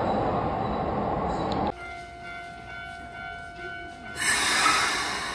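Keikyu electric train running out of the station, a loud steady rumble that cuts off suddenly. Then a Keikyu 1000-series train standing at the platform gives off a quieter steady hum of several held tones, and a sudden loud rushing sound starts about four seconds in.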